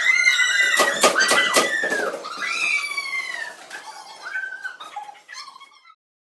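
A run of loud, high-pitched squeaks, several drawn out and arching in pitch, mixed with clicks, cutting off abruptly near the end.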